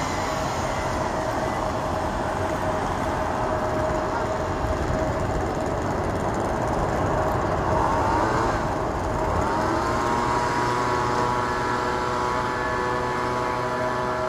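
Boeing 787 airliner's jet engines at climb power, heard from the ground as the aircraft climbs away: a steady noise with a held tone. About eight seconds in, a group of overtones sweeps up and down, then rises again and levels off.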